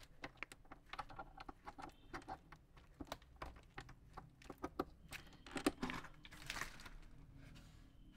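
Clear plastic packaging rustling and crinkling as hands rummage through it, with many irregular small clicks and ticks and a louder rustle about two-thirds of the way through.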